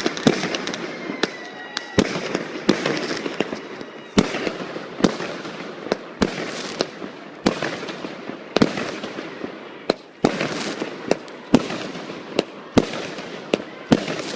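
Aerial fireworks going off in quick succession: sharp bangs about one to two a second over a continuous crackling hiss.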